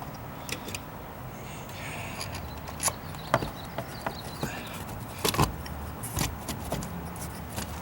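Scattered light clicks and taps of a metal weatherproof outlet cover and box being handled and fitted over a GFCI outlet, the sharpest knocks about a third of the way in and again past the middle, over a steady low background noise.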